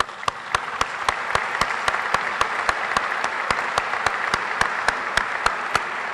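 Audience applause, with one person's claps close to the microphone standing out sharply and evenly over it, about four a second, stopping near the end.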